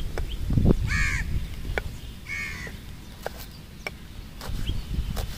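A crow caws twice, about a second in and again about two and a half seconds in, over scattered sharp taps of a knife chopping green chillies on a wooden board.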